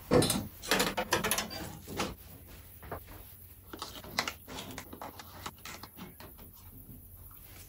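Hands working on top of a car engine: a few sharp knocks and clatters of parts in the first two seconds, then lighter scattered clicks and rustling as a plastic funnel is set into the oil filler.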